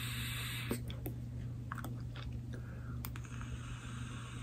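A draw on an Aspire AVP Cube pod vape: a steady airy hiss of air pulled through the pod, stopping under a second in. Then scattered small clicks of mouth sounds and the devices being handled.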